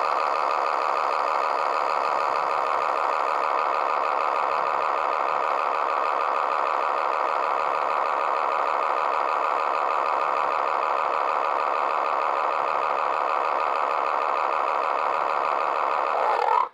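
Steady, loud, rapid rattling sound effect from a cartoon soundtrack that cuts off suddenly near the end.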